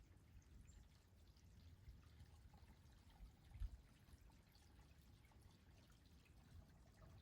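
Faint trickling and pouring of stream water, with a low rumble underneath and one short dull thump about three and a half seconds in.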